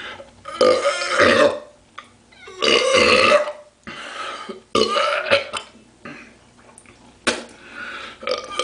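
A man belching loudly three times, each belch about a second long and a couple of seconds apart, brought up by chugging a cold drink. A short sharp click comes about seven seconds in.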